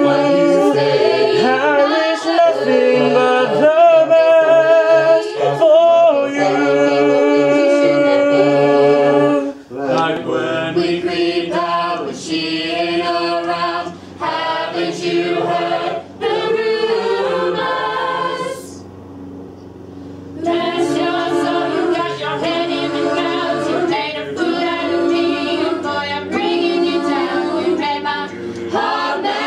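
School choir of mixed voices singing a cappella. The singing breaks off for a second or two about two-thirds of the way through, then resumes.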